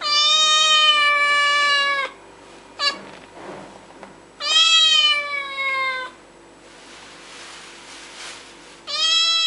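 A cat meowing: three long, drawn-out meows of about two seconds each, each sagging a little in pitch toward its end, with a short click between the first and second.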